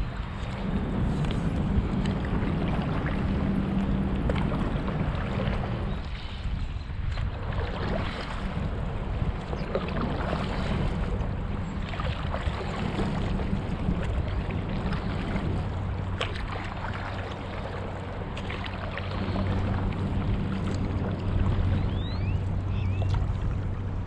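Stand-up paddleboard paddle dipping and splashing in lake water every couple of seconds, with water moving around the board and a steady low wind rumble on the microphone.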